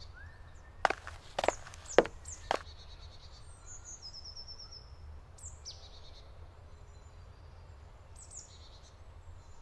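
Songbirds singing in woodland, a series of short high trilled phrases repeating throughout, over a low steady rumble. About a second in comes a quick run of four sharp knocks, roughly half a second apart.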